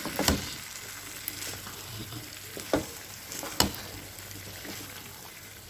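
Chicken and potato pieces frying in a pan with butter melting in, a steady sizzle. There are three sharp clicks along the way.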